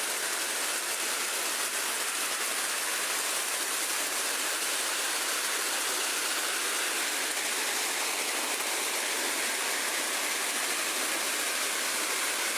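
Steady, even rushing hiss of falling water, mostly high-pitched with little low rumble, starting abruptly.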